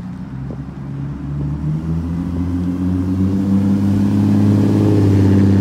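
Ford Explorer Sport Trac's 4.0-litre V6 through an aftermarket Magnaflow exhaust, pulling away with a deep, loud exhaust note. It comes in suddenly, climbs in pitch over the first couple of seconds, then holds steady and grows louder as the truck drives close past.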